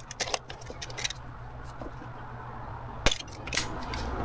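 Metal pliers clicking and clinking against hose clamps and engine parts: a few sharp clicks in the first second, then one loud click about three seconds in.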